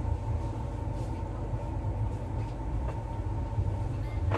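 Steady low rumble of a passenger sleeper coach running on the rails, heard from inside the car, with a faint steady high tone over it.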